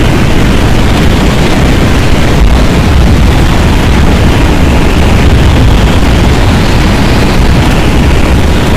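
Strong, tornado-like wind: a loud, steady, deep rush with most of its weight in the low end.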